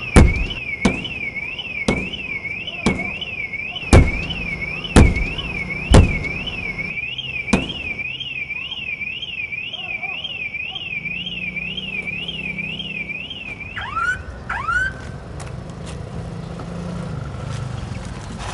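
Car alarm siren warbling up and down about twice a second, set off as heavy blows strike the car's side window roughly once a second, about eight in all over the first eight seconds. The alarm stops a little past the middle with a couple of short chirps.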